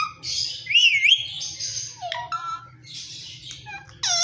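Indian ringneck parrot calling and chattering: squawky whistled calls that swoop up and down in pitch, loudest about a second in, with a sharp falling call near the end.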